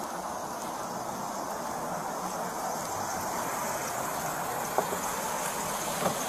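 Steady hiss of street and traffic noise picked up by a police body camera's microphone, with two faint clicks about five and six seconds in.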